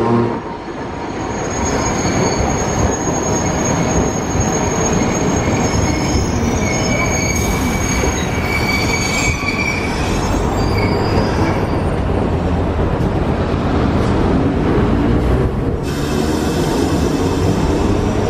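Iyotetsu type 50 tramcar with nose-suspended traction motors running in on street track and slowing for the stop, with a dense low rumble from the running gear. A high-pitched squeal rises over it around the middle as the car slows.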